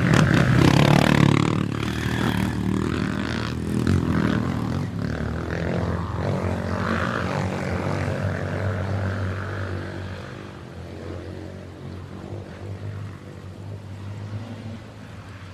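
Motocross dirt bike engines running and revving, loudest in the first couple of seconds and fading away after about ten seconds.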